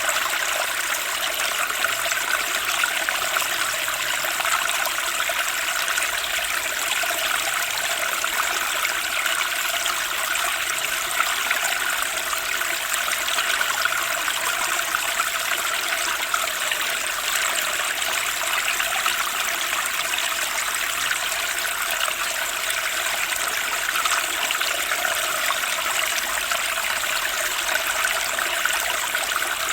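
Turbulent spring stream rushing and splashing steadily: an even, bright hiss of running water with little low rumble.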